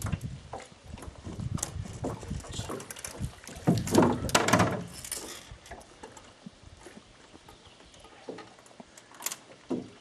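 Scattered knocks and thumps on a small aluminum boat as a fishing line is hauled in by hand, with a louder rushing noise lasting about a second, about four seconds in.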